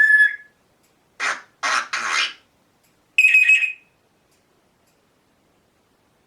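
African grey parrot giving a short whistle, then three quick raspy noises, its imitation of farts, then another short, higher whistle.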